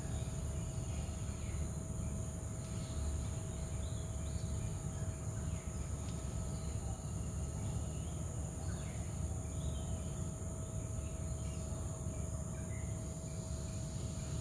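Outdoor ambience: insects trilling steadily at a high pitch over a low steady rumble, with a steady mid-pitched hum and scattered short bird chirps.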